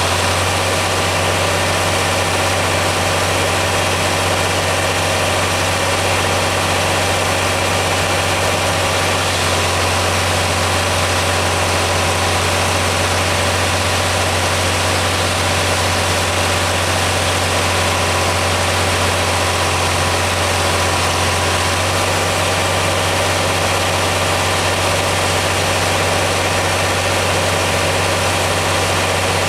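John Deere 4020 six-cylinder tractor engine running steadily while driving a sawmill through its belt pulley. Its deep low note grows stronger for a stretch in the middle.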